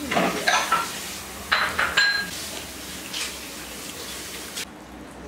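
Steel dinner plates clinking and rattling on a table as people eat from them by hand. There are a few sharp metallic knocks, and a couple of them ring briefly about one and a half to two seconds in.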